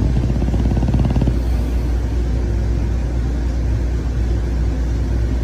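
A sleeping dog snoring: one rattling snore of rapid pulses in the first second or so, over a steady low rumble.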